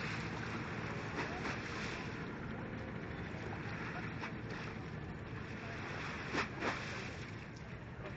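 Steady outdoor noise, with wind buffeting the microphone over a low general rumble. Two brief sharp sounds come close together about six and a half seconds in.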